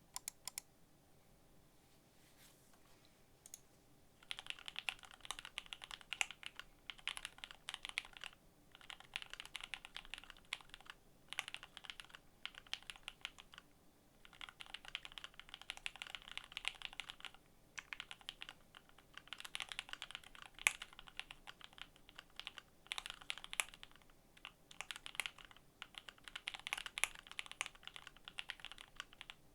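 Custom KBDFans D65 mechanical keyboard being typed on: lubed Tangerine linear switches on a foamed, gasket-mounted FR4 plate under GMK ABS keycaps, giving fast runs of keystrokes in bursts of a few seconds with short pauses. A few single clicks come at the very start, before the steady typing begins about four seconds in.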